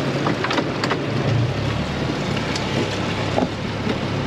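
Boat engine running steadily under wind and water noise, with a few faint clicks in the first second.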